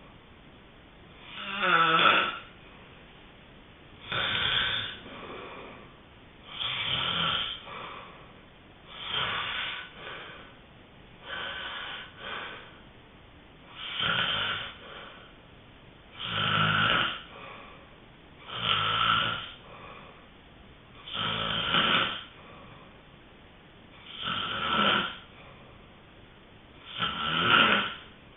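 A sleeping person snoring in a steady rhythm, about one snore every two and a half seconds, with quiet gaps between.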